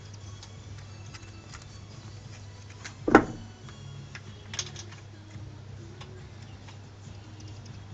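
Two sharp knocks: a loud one about three seconds in and a fainter one a second and a half later. Light scattered ticks run over a low steady hum.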